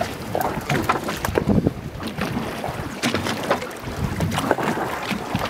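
Gusty wind buffeting the microphone out on open water, with irregular knocks.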